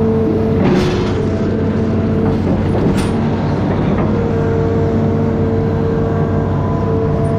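Amphibious excavator's diesel engine running steadily under load, with a constant whine over the rumble and a couple of short knocks as it works.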